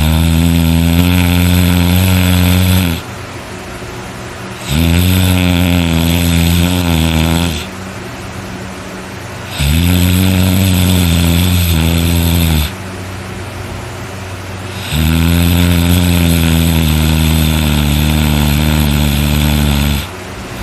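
A person snoring very loud: four long, low snores, roughly one every five seconds, each lasting about three seconds and the last one nearer five.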